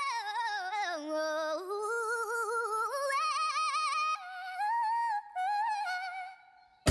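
A lone voice singing a wordless, warbling serenade melody with strong vibrato. It slides down in pitch over the first second and a half, steps back up, and fades away near the end.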